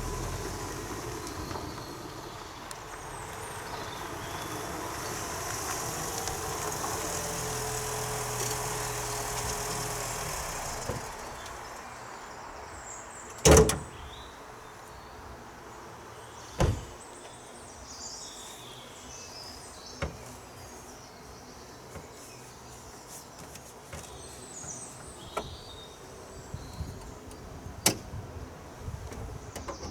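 A car engine running steadily, going quiet after about eleven seconds, then two loud door slams about three seconds apart, followed by a few light clicks.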